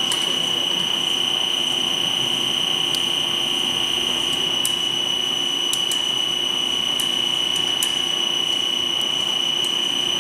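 Snack pellet extruder and its belt-driven die cutter running: a steady high-pitched whine over even machine noise, with faint ticks now and then.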